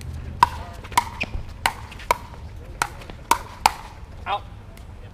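Pickleball rally: about eight sharp, ringing pops of paddles and the hard plastic ball, coming every half second or so over about three seconds, then stopping.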